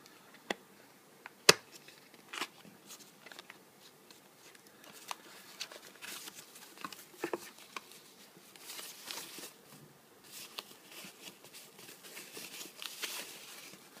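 Handling of a small cardboard box being opened, with a few sharp clicks, the loudest about a second and a half in. Then, from about halfway, a thin plastic bag crinkles and rustles in bursts as a white plastic phone dock is slid out of it and unwrapped.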